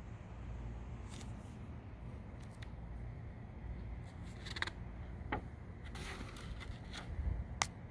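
Handling of a paper catalog: scattered light clicks and a brief rustle of paper about six seconds in, over a low steady rumble.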